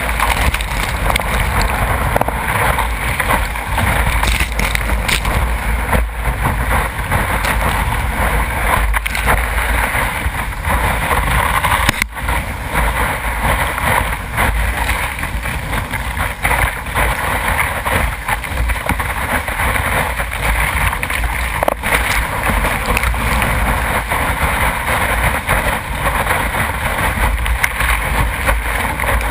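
Breaking surf and whitewater rushing around a surfing kayak, with spray splashing over the bow and wind buffeting the microphone as a low rumble. Loud and continuous throughout.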